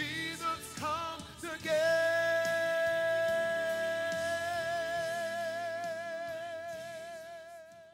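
Gospel-style solo singing: a voice slides through a few short notes, then holds one long note with a wide vibrato from about two seconds in, fading away near the end over a soft instrumental backing.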